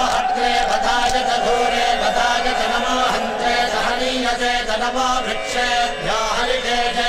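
Hindu devotional chanting by a group of voices, sung with long held notes.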